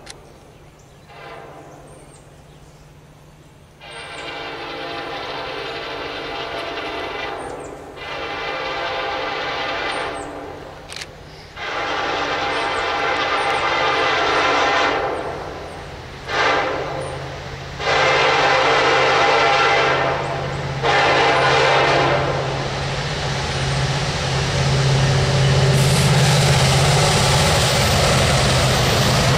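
Norfolk Southern freight train's diesel locomotive air horn sounding a string of blasts, mostly long with short breaks between them, getting louder as the train approaches. Near the end the horn gives way to the loud rumble of the locomotives' engines passing.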